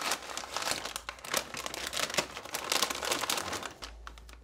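Clear plastic packaging bag crinkling and rustling as it is handled and the LED strip kit is pulled out of it. It dies down near the end to a few small clicks.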